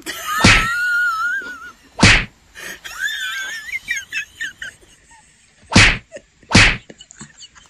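A cat hissing and spitting: four short, sharp spits, with a thin wavering cry during the first two seconds and again about three seconds in.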